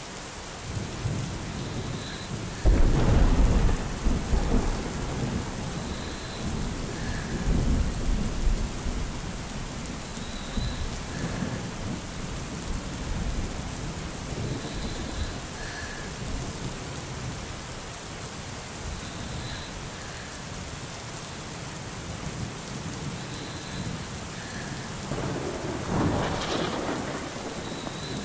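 Steady rain with thunder rolling: a loud low rumble about three seconds in, another around eight seconds, and a further peal near the end.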